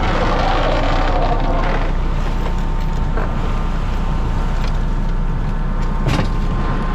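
Fishing boat's engine and pot-hauling gear running with a steady low drone while a crab trap is hauled aboard, with water splashing in the first couple of seconds and a single sharp knock about six seconds in as the trap comes to the rail.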